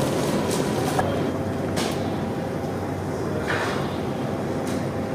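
Wood fire burning under a large cooking pot: a steady dense rumble with a few sharp crackles.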